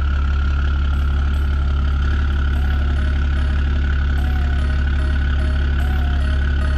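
Ram pickup's engine idling steadily, a deep, even drone with no revving.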